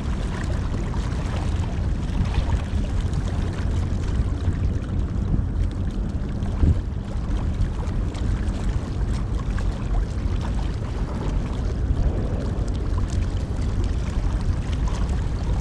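Wind rumbling on the microphone, with choppy water lapping against the breakwater rocks. A single knock about seven seconds in.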